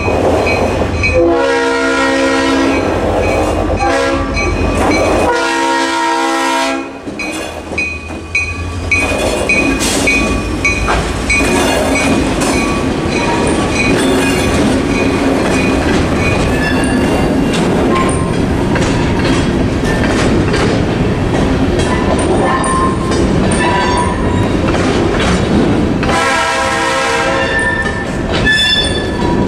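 A diesel freight locomotive sounds its horn in several blasts through the first seven seconds, while the crossing's Safetran mechanical bell dings steadily. The locomotive then rumbles past, and its freight cars clatter over the crossing. The horn sounds again near the end.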